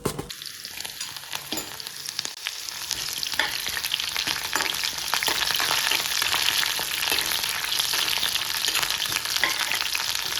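Ingredients frying in hot oil in a karahi: a crackling sizzle starts suddenly as they go into the oil and grows louder over the first few seconds, then holds steady.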